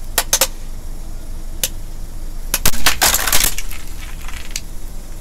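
Hard plastic mask cracking and splintering under a slowly rolling car tyre. A few sharp cracks in the first half-second and one at about a second and a half, then a dense burst of cracking about two and a half to three and a half seconds in, the loudest part, with scattered cracks after it over a low rumble.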